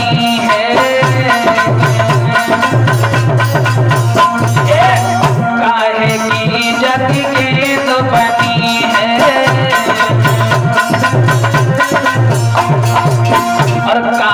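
Instrumental passage of Indian folk devotional music: a hand drum keeps a steady rhythm under a winding melody line.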